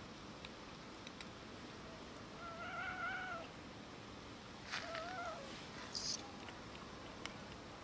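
A cat meowing twice: a drawn-out meow about two and a half seconds in, then a shorter one about two seconds later. A few faint clicks and a brief rustle are heard around the calls.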